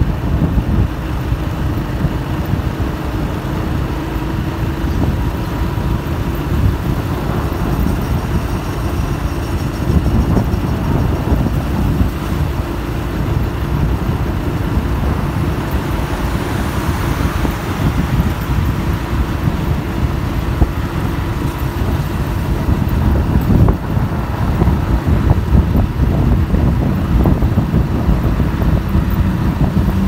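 A vehicle driving along a road, heard from on board: a steady low rumble of road and engine noise with a faint steady hum.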